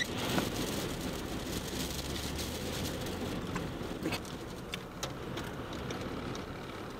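Steady rushing noise with a low rumble, heard from inside a vehicle, with scattered light ticks through it.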